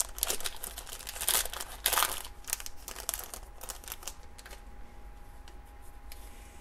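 The foil wrapper of a 1986 Sportflics baseball card pack being torn open and crinkled, crackling loudest for the first two seconds. After that it thins to a few light rustles and clicks, then goes quiet.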